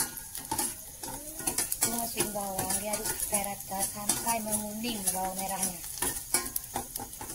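Metal spoon stirring and scraping around a stainless steel saucepan, clinking against the pan, with a light sizzle. A wavering, voice-like sound runs in the background for a few seconds midway.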